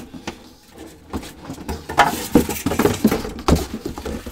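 A cardboard box and its foam packing being handled: irregular knocks, taps and rustles, busiest from about two seconds in.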